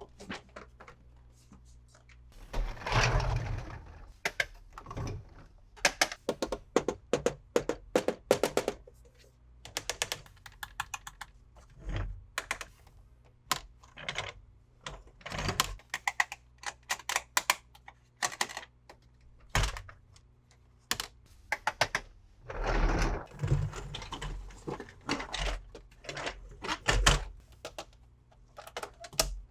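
Hard plastic toy vehicles and their packaging being handled: irregular clicks, taps and knocks of plastic parts, with two longer rustling stretches, one near the start and one near the end.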